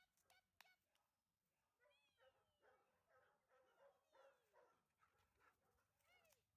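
Faint dog whining and yipping during play: a run of short cries that rise and fall in pitch, starting about two seconds in and lasting until near the end, with a few light clicks at the start.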